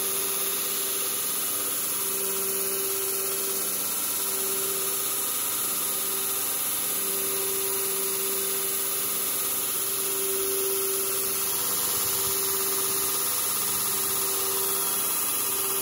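KMG TX 2x72 belt grinder running at about 90% speed on its VFD-driven motor, with an old worn belt spinning and no workpiece on it. It makes a steady hiss with a hum that swells and fades every couple of seconds.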